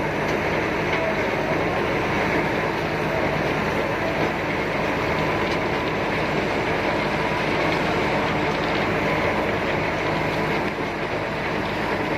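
Liebherr PR 745 crawler bulldozer running steadily, its diesel engine a continuous low drone under a dense even clatter.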